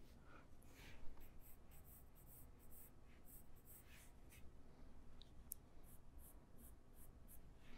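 Near silence with faint, scattered scratchy strokes of a pen drawing lines.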